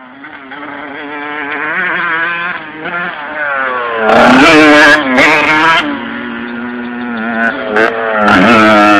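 Motocross dirt bikes revving hard as two riders come past over a jump, the engine pitch climbing and dropping with the throttle. Loudest about four seconds in and again near the end, as each bike passes close.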